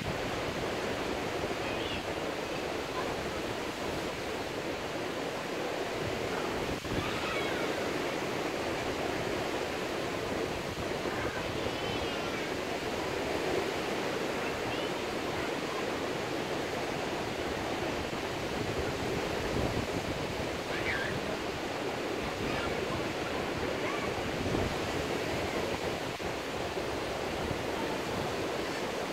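Surf breaking on a sandy beach: a steady rush of waves washing in, with a few faint short cries now and then.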